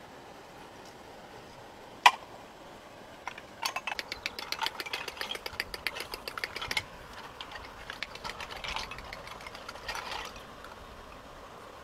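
Dogs eating cooked snails from a wicker basket, the shells clattering and crunching: one sharp click about two seconds in, then a dense run of rapid clicks that thins out toward the end.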